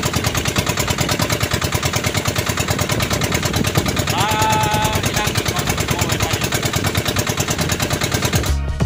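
Boat engine running with a rapid, even chugging. A voice calls out briefly about halfway through.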